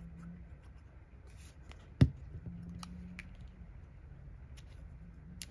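Small clicks and taps of craft tools and paper being handled on a desk, with one sharp tap about two seconds in.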